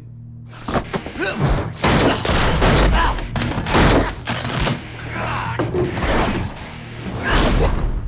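Film fight sound effects: a rapid string of heavy thuds, blows and crashes over a dramatic music score, starting about a second in.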